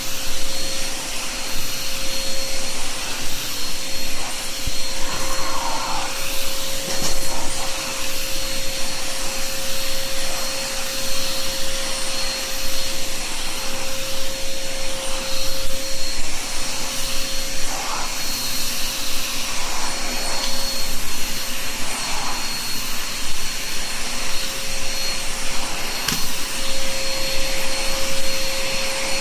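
Vacuum cleaner running steadily, its motor holding a constant whine.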